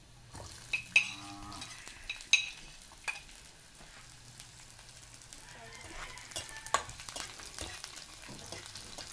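Sliced red onion scraped off a plate with a metal spoon into hot oil in a nonstick wok: clinks of metal on plate and pan, then the onions sizzle and fry as a spatula stirs them.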